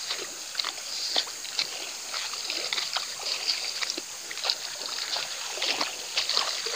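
River water splashing and trickling, with many small irregular splashes over a steady rush of water.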